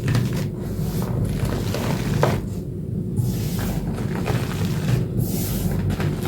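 Blue gym chalk reformed with corn starch paste being crushed and crumbled, giving a series of short crunchy crackles over a steady low hum.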